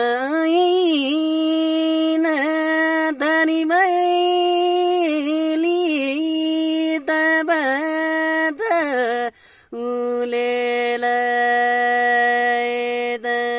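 A young man singing a Nepali song solo without accompaniment, in long ornamented notes that bend and waver, with short breaks for breath. A long note is held steady through the last few seconds.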